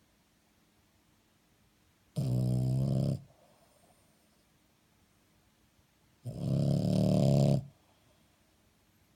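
French bulldog snoring in its sleep: two loud snores about four seconds apart, the second a little longer than the first.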